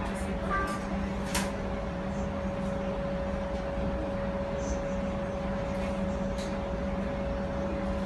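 Cabin of a Bombardier Flexity streetcar: steady electrical and ventilation hum with two level tones over a low rumble, and one sharp click about a second and a half in.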